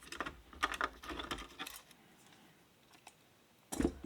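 Light clicks and rattles of the CPU heatsink retention bracket being worked off the motherboard, then quiet, then a single louder knock near the end.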